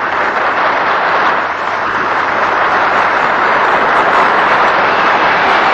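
Large audience applauding steadily, heard on an old archival recording.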